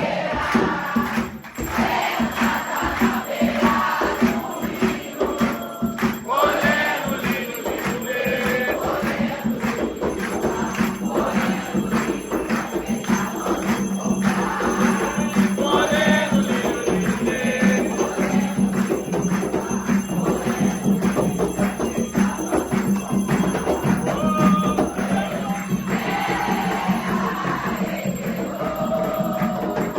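Group of voices singing a chant together over steady, fast drumming and percussion, typical of a ritual song for Xangô.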